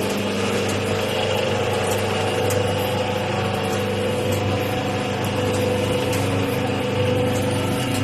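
Automatic cooking-oil packing machine running with a steady motor hum and faint, irregular light ticks.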